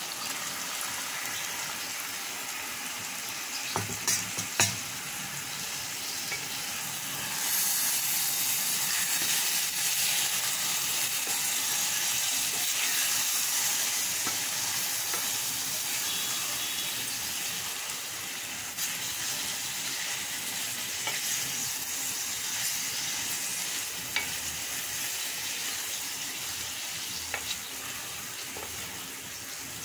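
Yogurt-marinated chicken pieces sizzling in a hot pan of onion-tomato masala as they are stirred with a wooden spoon. A few sharp knocks come about four seconds in, and the sizzle gets louder from about seven seconds, then eases off slightly.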